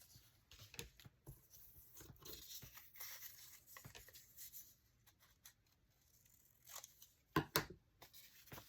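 Faint rustling and crinkling of paper and cardstock pieces being handled and shuffled, with two sharper taps near the end.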